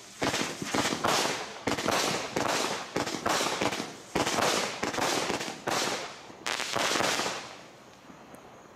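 A 190-shot consumer firework barrage cake firing its last shots in rapid succession, about two or three sharp shots a second, each with its burst overhead. The firing stops about seven and a half seconds in and the sound dies away.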